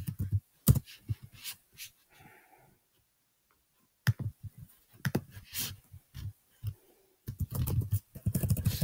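Typing on a computer keyboard: quick, irregular keystrokes and clicks, with a short pause about three seconds in and a fast run of keys near the end.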